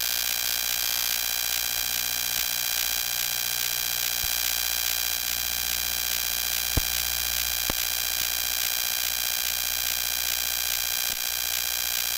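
Steady electrical hiss and buzz, with a couple of faint clicks a little past the middle and no voice: the sound of a recording whose audio feed has dropped out and left only static.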